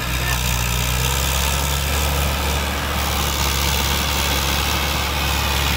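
Mahindra Arjun 555 tractor's diesel engine running steadily under load while pulling a trailer heaped with wet silt.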